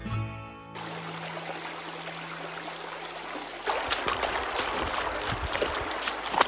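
Music ends under a second in, giving way to the steady rush of a shallow stream. From a little over halfway, boots wade and splash through the water over a stony riverbed, a quick run of sloshing steps over the flowing water.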